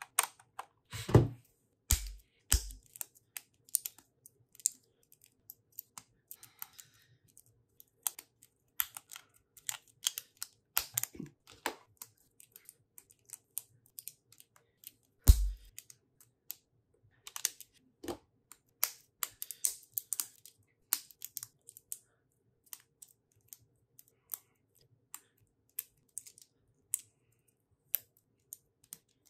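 Lego bricks clicking and snapping together as small plastic pieces are pressed on and picked from a loose pile, in irregular sharp clicks. A few dull thumps stand out, the loudest about fifteen seconds in.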